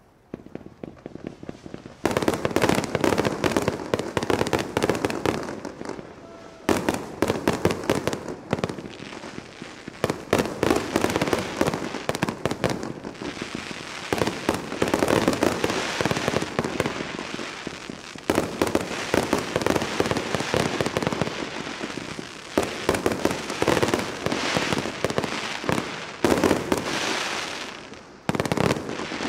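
Fireworks display: dense, rapid crackling and banging from aerial shells and ground fountains, coming in loud waves with short lulls. A few faint pops at first, full force from about two seconds in, then a sudden drop near the end.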